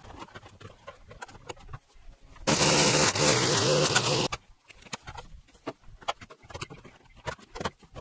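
Petrol-engine string trimmer running at cutting speed for about two seconds in the middle. Before and after it come quieter scattered crackles and snaps of dry weeds and brush being pulled by hand.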